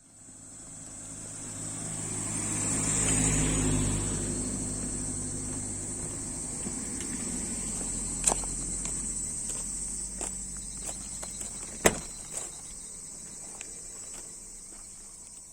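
A car's engine grows louder to a peak a few seconds in and then slowly fades as it passes or moves off, over a steady high-pitched buzz of insects. Two sharp knocks sound in the second half.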